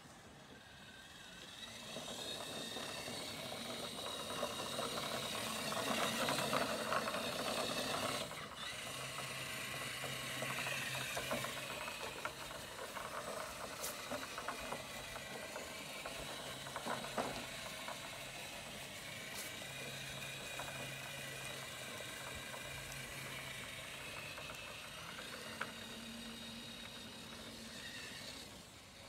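Element RC Enduro Sendero 1/10-scale trail truck driving over grass: its electric motor and geared drivetrain whine, rising and falling with the throttle, over a rustle of tyres through the lawn. The whine swells a couple of seconds in and drops out briefly about eight seconds in.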